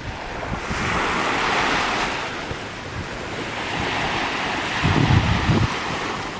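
Surf washing up on a beach in a steady, swelling hiss. Wind buffets the microphone in low rumbles about five seconds in, the loudest part.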